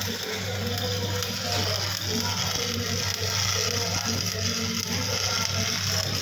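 Shop machinery running with a steady low hum and a mechanical whir, the high hiss growing stronger from about a second and a half in.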